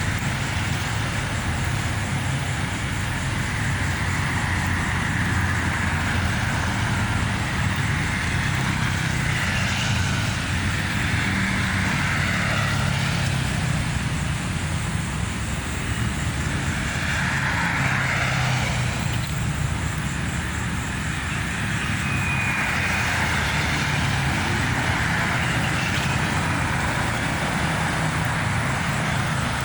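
Steady road traffic noise: a low rumble with vehicles swelling past every several seconds.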